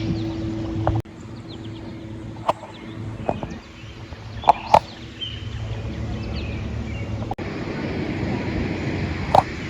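Kayak paddling on open water: a paddle dipping and splashing, with a few sharp knocks of the paddle against the hull.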